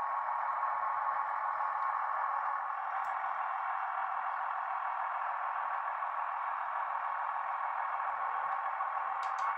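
A Bachmann OO gauge Class 158 DMU model's DCC sound decoder playing a steady diesel engine sound through the model's small speaker. The sound is thin, with no low end, and has a few brief clicks near the end.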